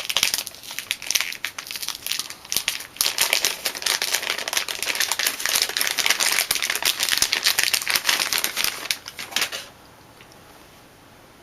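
Plastic packaging crinkling and rustling as a replacement hard drive is unwrapped by hand, dense and irregular until it stops about ten seconds in.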